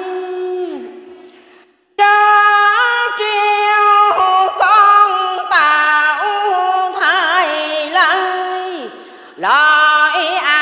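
A woman chanting Vietnamese Buddhist verse in the sung ngâm style, holding long drawn-out notes with wavering slides in pitch. The voice fades out about a second in, pauses briefly, takes up again near two seconds, and pauses once more near nine seconds before the next line.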